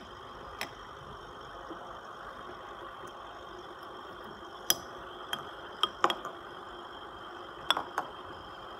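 Small aquarium-style air pump running steadily, pushing air through air stones that bubble in two glass beakers. A few sharp clicks, mostly in the second half, as the tubing and stones are handled against the glass.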